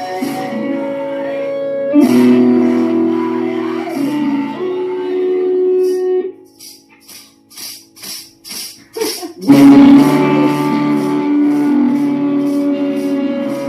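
Band demo music: sustained instrumental chords over steady percussion hits. A little after 6 s the instruments drop out, leaving only the percussion for about three seconds, then the full band comes back in loudly.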